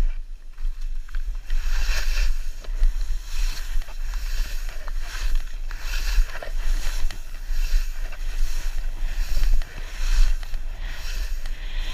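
Skis hissing and scraping through snow in regular turns, a swell of hiss about every second or so, over a steady low rumble of wind buffeting the camera's microphone from the downhill speed.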